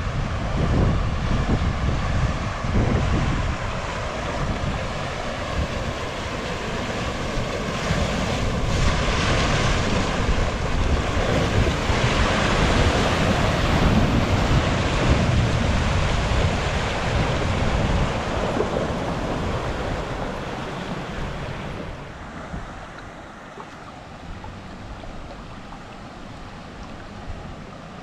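A Nissan Patrol four-wheel drive pushing through a river crossing: water surging and splashing around the wheels, with wind buffeting the microphone. About three quarters of the way through, the splashing dies away, leaving the steadier rush of the river.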